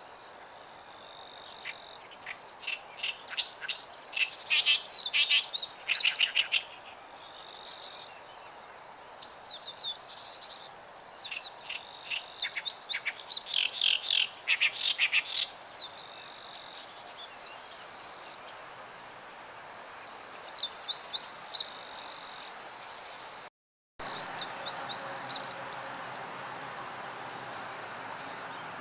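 Great reed warbler singing its harsh, chattering song in several bouts of a few seconds each, made of quick repeated notes.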